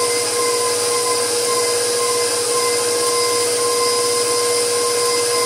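Bowl-lift stand mixer running steadily at medium speed, beating butter in its steel bowl: an even motor whine over a hum. This is the creaming stage, butter being whipped fluffy.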